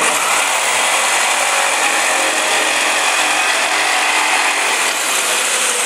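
Corded electric jigsaw cutting through a wooden board. It starts abruptly and runs steadily, its high whine falling slightly in pitch near the end.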